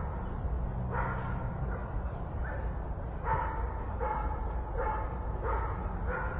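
A dog barking repeatedly, short barks roughly once a second, over a steady low city rumble.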